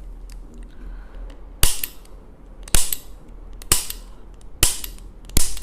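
Five sharp impacts about a second apart from hands-on chiropractic work on the patient's body, over a steady low hum.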